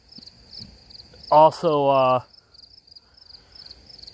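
Crickets chirping steadily in a high pulsing trill, about three pulses a second, with a man's voice breaking in briefly for a word or two about a second and a half in.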